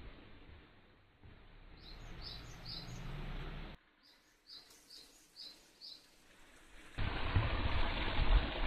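A small bird chirping in two quick runs of four or five short high notes, over a faint background hiss. Near the end a much louder steady rushing noise cuts in.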